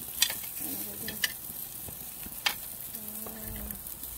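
Green mussels on the half shell sizzling on a barbecue grill, a steady hiss. Metal tongs click sharply against the grates and shells three times.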